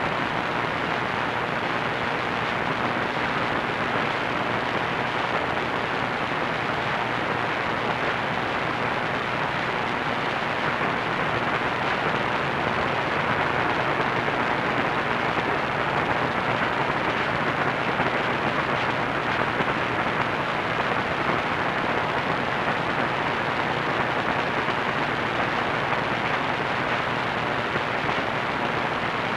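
Steady hiss of an AM radio receiver tuned to 1490 kHz, with no programme audible: the long-distance station's signal has faded down into the noise.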